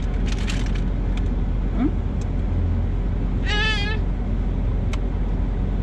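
Steady low rumble of a car, heard from inside the cabin, with one short high, wavering cry about three and a half seconds in.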